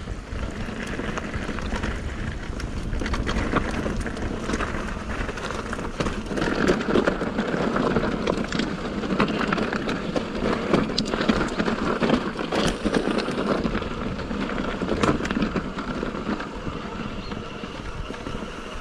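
Mountain bike riding over a rough off-road trail: tyres crunching on stones and the bike rattling, with many sharp knocks and wind rumbling on the microphone.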